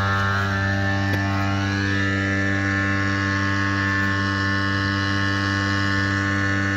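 A steady low hum at one unchanging pitch.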